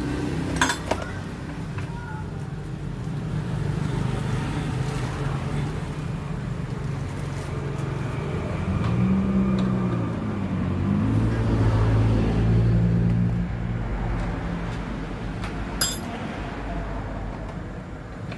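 A vehicle engine running, its pitch rising and falling twice in the middle, loudest there. A sharp click sounds near the start and another near the end.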